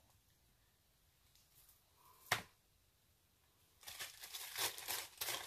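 Paper packaging crinkling and rustling as a gift is unwrapped, starting about four seconds in, after a single click a little past two seconds.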